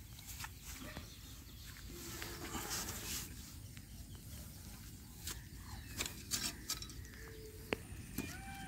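Hand earth auger being turned in damp soil to bore a post hole, with soft scraping and a few short knocks of grit and stones against the blade. A bird calls with short curving chirps near the end.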